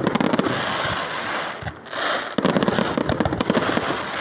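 Fireworks going off in rapid crackling salvos, many sharp pops a second. There is a short break with a hiss just before two seconds in, then another dense run of crackles that thins out near the end.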